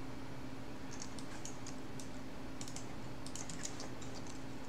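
Computer keyboard being typed on in two short flurries of key clicks, over a faint steady hum.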